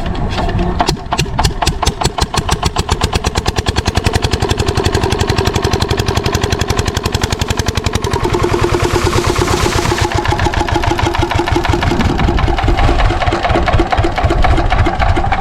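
Single-cylinder 8 hp diesel pumpset engine starting up: its firing beats come slowly at first and quicken over several seconds, then it settles into a steady run.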